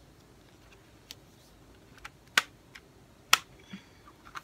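Plastic CD jewel case being handled and snapped shut: a few light clicks and taps, with two sharp plastic clacks about a second apart in the middle.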